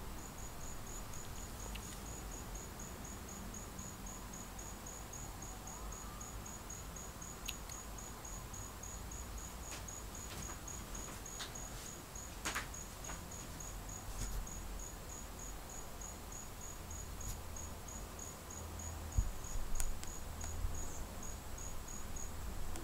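Insect chirping, a cricket-like chirp, short and high-pitched, repeated evenly about three times a second, stopping near the end.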